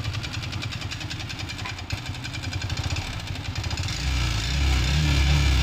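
Yamaha R15 V3's single-cylinder engine running with a fast, even knocking rattle, growing louder about four seconds in. The mechanic puts the noise down to a seized piston, the engine having run on about 50 g of oil instead of 800–850 ml.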